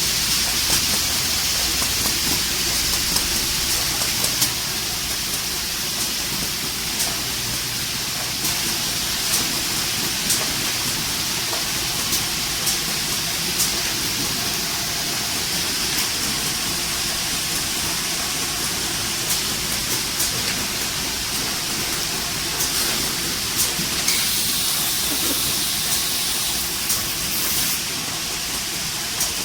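Powder carton packing machine running: a steady air hiss with short mechanical clicks and knocks every second or two.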